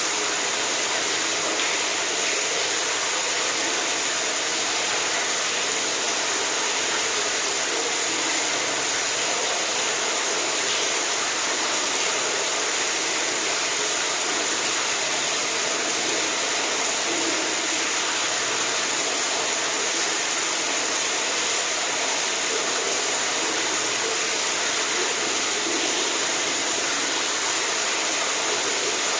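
Rushing water making a steady, even hiss that does not change.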